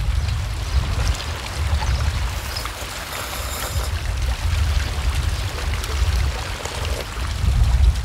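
Wind rumbling on the microphone over the wash of small sea waves against shore rocks. Faint eating sounds, with a noodle slurp about the middle.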